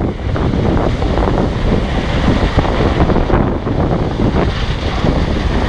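Loud wind buffeting the microphone, a steady rumbling gust noise strongest in the low end.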